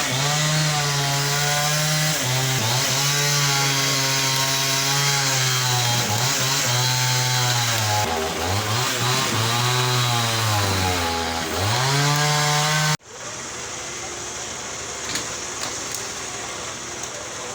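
Chainsaw cutting through a fallen tree, its engine pitch sagging and recovering as the chain bogs down in the wood. About 13 seconds in, the sound cuts off abruptly, leaving a quieter background with a few light clicks.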